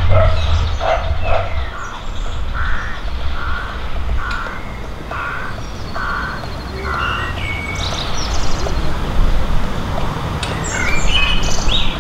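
A crow cawing about six times at an even pace, with smaller birds chirping and a low rumble of road traffic underneath.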